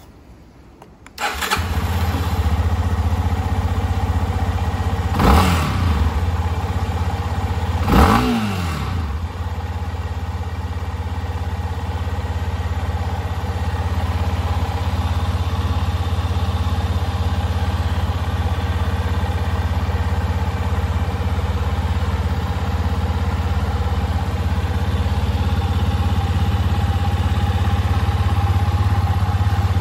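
Yamaha Serow 250's air-cooled single-cylinder engine starting about a second in, blipped twice with the throttle a few seconds later, then settling into a steady idle.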